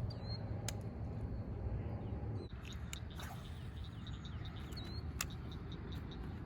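Small birds chirping: short, high chirps, some sliding quickly up or down, come in scattered bunches, busiest in the second half. A steady low rumble runs underneath, with a few sharp clicks.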